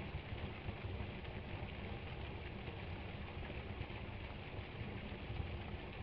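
Partly frozen waterfall: a steady rush of falling water over a low rumble.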